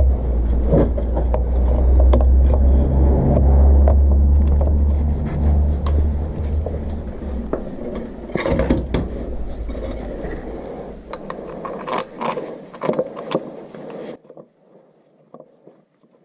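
A loud, steady low rumble of a running vehicle dies away after about seven seconds, leaving scattered clicks and knocks. The sound then cuts off abruptly about two seconds before the end.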